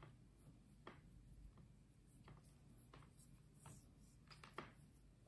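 Near silence with a few faint, scattered clicks and rubs of fingers handling thin insulated wire in a metal helping-hands clamp; the clearest click comes a little after four seconds in.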